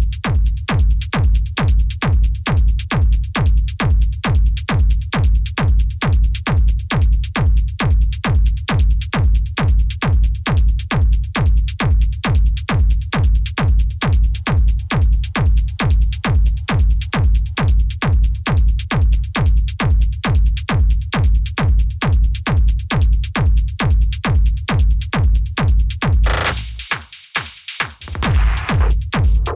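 Hard electronic dance music in the hardstyle/industrial techno vein: a heavy kick drum on every beat, about two and a half beats a second. Near the end a noise swell comes in and the kick drops out for about two seconds, then returns.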